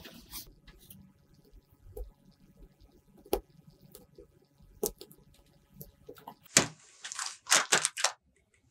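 Nail clipper snipping and tearing lime peel, with a few sharp, isolated clicks and soft squishes of the wet rind. Near the end comes a louder run of crinkly rustling.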